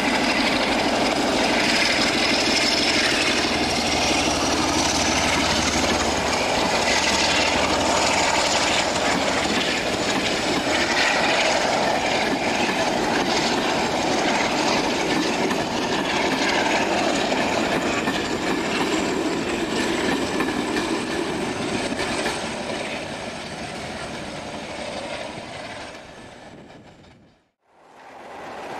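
Class 47 diesel locomotive working hard as it hauls passenger coaches away, its Sulzer V12 engine and the train's running noise steady, with a high whine slowly rising in pitch. The sound fades as the train recedes and cuts to silence near the end.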